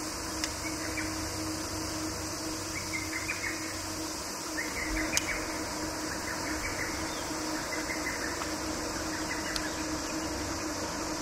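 Steady low hum from a bass boat's electric trolling motor under outdoor background noise, with faint scattered chirps and three sharp clicks.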